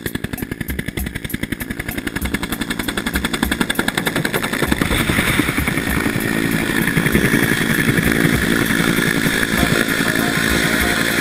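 Helicopter rotor blades chopping in a fast, even beat over the engine's drone, growing louder through the first half.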